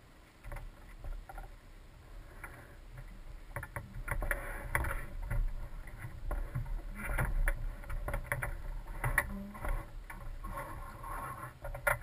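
Wind rushing and buffeting over a wing-mounted camera housing on a light aircraft, in uneven gusts over a low rumble from the muffled engine. It rises from quiet about half a second in and is loudest in the middle.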